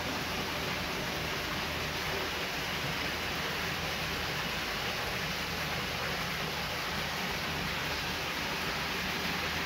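Steady hiss of moving water, even and unbroken, with a faint low hum underneath.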